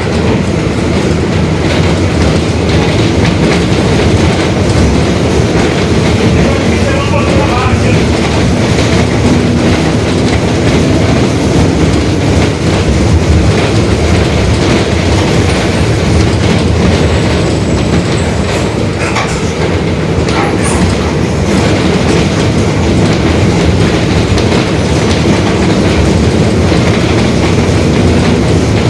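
Mercedes-Benz OF-1721 BlueTec 5 city bus on the move: steady loud engine and road rumble with rattling, and the differential growling.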